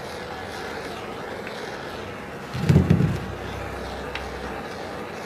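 Handheld propane torch lighting: a low whump about two and a half seconds in as the flame catches, over a steady hiss, then the lit torch burning steadily.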